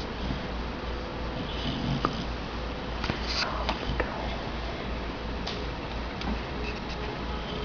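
A sleeping pet snoring and snuffling through its nose in soft breaths, with a few short, sharp snorts between about two and four seconds in.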